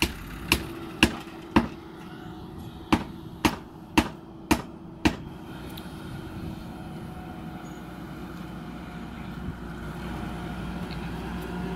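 JCB 3DX backhoe loader's diesel engine running steadily as the backhoe digs. Over the first five seconds, sharp knocks come about twice a second, then stop.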